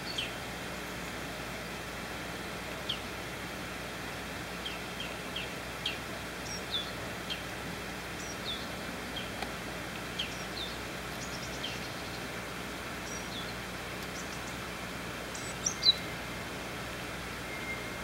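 Steady background hiss with scattered short, falling chirps of small birds, irregularly spaced, and two louder chirps close together near the end.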